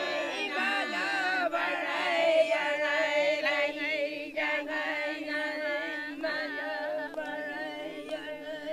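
Several voices singing together in a chant, the melody moving over a steady held note.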